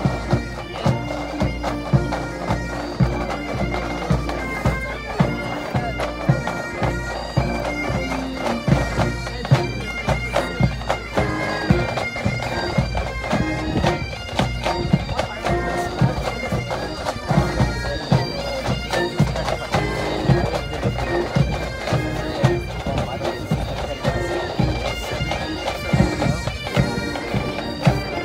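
Pipe band playing a march: bagpipes with their steady drones under the melody, over a regular drum beat.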